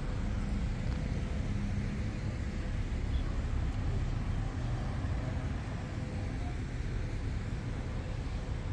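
Steady low hum of road traffic, with no single sound standing out.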